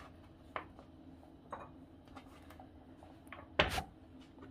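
A knife cutting artichoke on a wooden cutting board, a few soft clicks, then one louder knock of the clay tagine lid being handled about three and a half seconds in.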